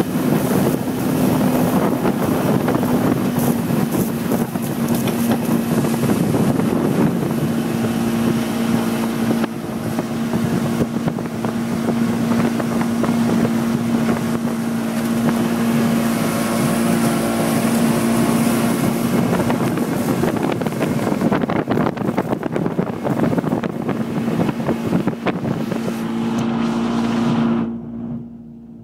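Tohatsu outboard motor running at speed with a steady drone, under the rush of wake spray and wind on the microphone as the boat tows an inflatable ride. About a second before the end, the rushing noise drops away, leaving the engine's tone.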